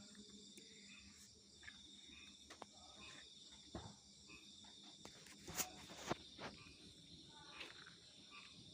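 Faint steady high-pitched trilling of insects, crickets by the sound of it, with a few faint clicks, the loudest about five and a half and six seconds in.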